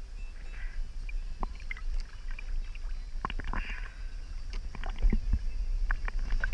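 Small sea waves lapping and splashing against a waterproof camera at the water's surface: a steady low rumble of water on the housing with irregular small clicks and splashes, busier in the second half.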